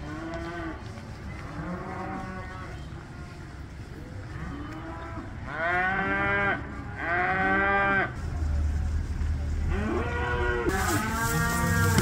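Cattle in a driven herd mooing repeatedly: a string of drawn-out calls from several animals. The two loudest come a little past the middle, and calls overlap near the end. A steady low rumble sets in about two-thirds of the way through, and a hiss near the end.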